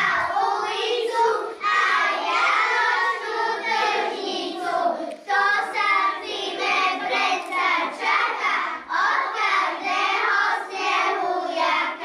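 A group of young kindergarten children singing a song together.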